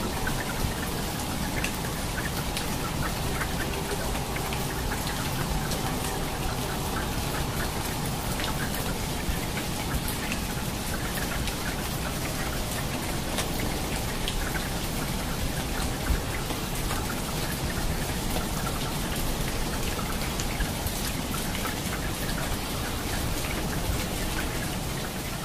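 Steady rain, with individual drops splashing close by as scattered sharp taps.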